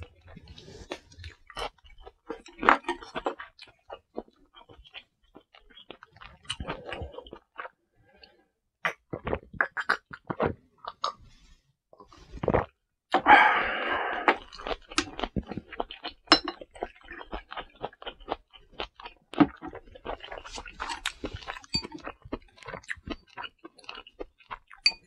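Close-miked eating: chewing ramen and stir-fried pork, with chopsticks clicking against bowls and dishes. About thirteen seconds in, right after a shot of soju is downed, a loud breathy burst lasting about a second.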